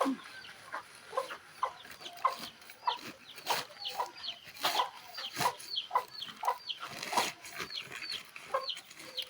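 Chickens clucking, many short, falling calls repeated throughout, with a couple of brief noisier handling sounds.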